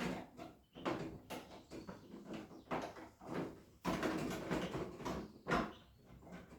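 Irregular knocks, bumps and rustles of household objects being handled, with a sharper knock about five and a half seconds in.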